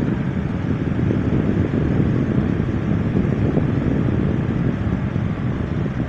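Lasko 20-inch box fan running, its airflow buffeting the microphone held close to the grille in a loud, steady low rumble of wind noise.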